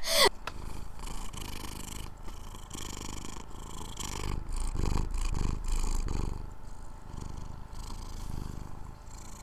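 Domestic cat purring close to the microphone, a low pulsing rumble that swells and eases with its breaths, loudest around the middle.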